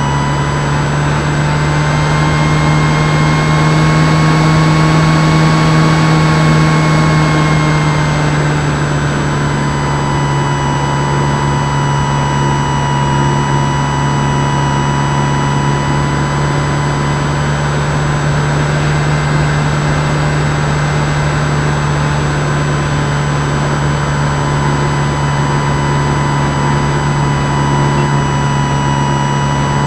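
Motor and propeller of an X-8 RC flying wing heard in flight from a camera on the airframe: a steady drone with higher whining tones over wind rush. The pitch rises slightly a few seconds in and settles back about eight seconds in.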